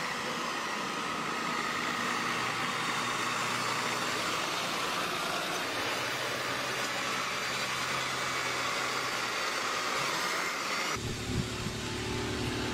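Heavy-haulage truck with a multi-axle low-loader trailer on the move: a steady hiss of engine, tyre and road noise. About eleven seconds in it cuts suddenly to a lower, closer diesel engine rumble.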